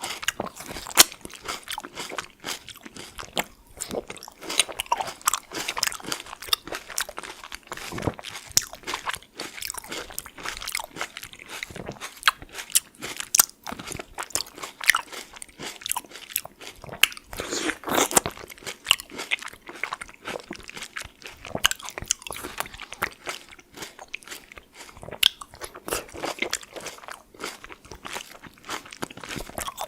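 Close-up chewing of a fresh tomato: a steady run of wet, crackly bites and chews, with one louder, longer crunch about eighteen seconds in.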